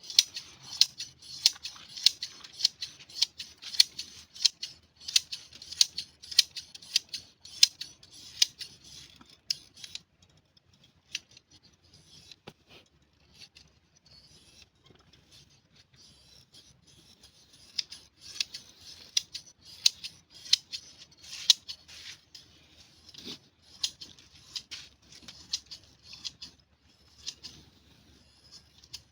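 Hand shears snipping through a sheep's fleece: a steady run of sharp snips, about two a second. About ten seconds in the snips turn faint for several seconds, then pick up again.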